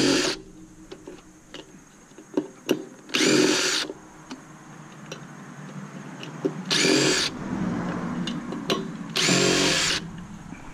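Power drill/driver running in four short bursts about three seconds apart, with light metal clicks and taps between them, while screws and parts come out of a stainless steel steamer cabinet.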